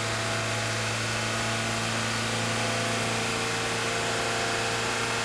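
Car engine idling with the air conditioning compressor engaged and the blower fan running, heard from inside the cabin as a steady, even hum with a low drone.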